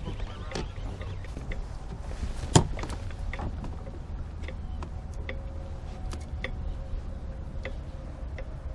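Baitcasting reel being cranked against a hooked fish, with soft ticks about once a second over a steady low rumble. One sharp loud knock on the kayak about two and a half seconds in.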